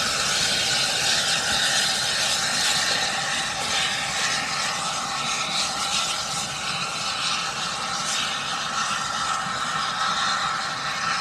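Steam train, a steady loud rushing hiss with faint steady ringing tones running through it.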